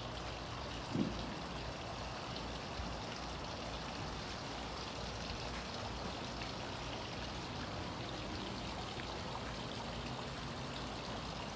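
Steady rushing background noise with no clear pitch, with one short sound about a second in.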